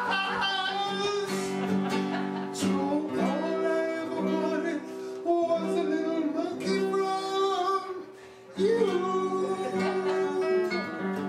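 A song: a male voice singing over guitar, with a brief break about eight seconds in.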